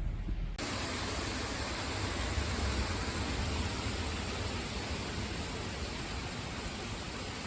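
Steady, even hiss of storm wind and rain that comes in abruptly about half a second in, over a low rumble.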